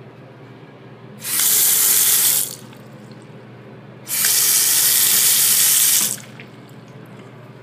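Bathroom sink faucet turned on twice, water running into the basin and drain, first for about a second, then about two seconds later for about two seconds; each run starts and stops abruptly.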